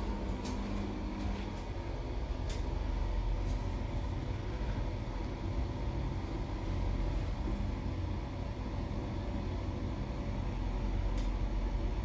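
Passenger lift car travelling down, with a steady low rumble and hum of the ride and a few faint clicks.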